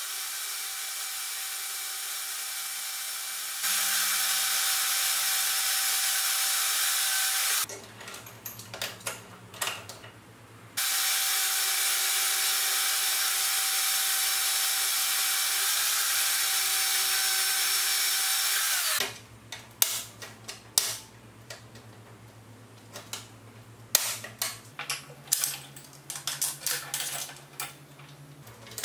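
Portable band saw cutting through the steel arm of a scissor car jack: a steady run of about seven seconds that gets louder a few seconds in, a short break of clicks, then a second steady run of about eight seconds. After it stops, irregular metal clanks and knocks as the jack is handled in the vise.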